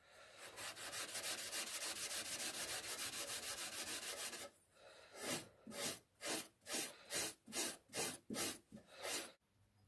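A small steel vise part rubbed back and forth on a maroon non-woven abrasive pad to scour off grime: quick short scrubbing strokes for about four seconds, then about nine slower strokes, roughly two a second.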